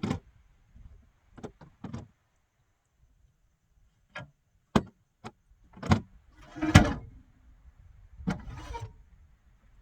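Irregular knocks and clunks of camping gear being handled and set up, about a dozen sharp hits spread unevenly. Two louder rustling scrapes come about two-thirds of the way in and again near the end.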